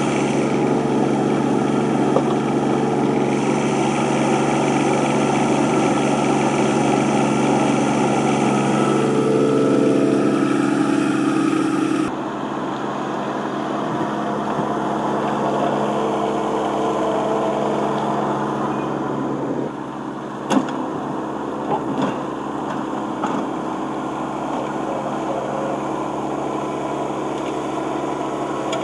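Yanmar SC2450 compact tractor's three-cylinder diesel engine running steadily, loud and close at first, then farther off after an abrupt change as the tractor pushes snow with its front plow. A single sharp clank comes about two-thirds of the way through, followed by a couple of lighter knocks.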